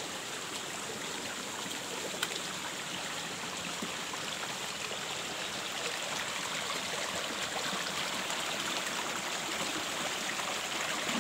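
Small, shallow mountain stream running over rocks and stones: a steady rush of water that grows a little louder near the end as it spills down a small cascade.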